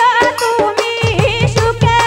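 Live Dhamail folk song: women's voices singing the melody through microphones over keyboard and hand-drum accompaniment, with a steady beat.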